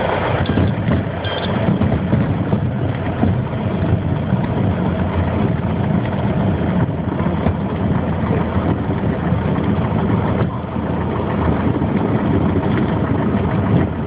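Piper PA-28's four-cylinder piston engine running steadily.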